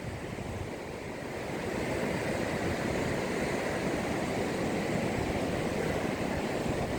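Steady rushing of sea surf, mixed with wind on the microphone. It grows louder about a second and a half in, then holds.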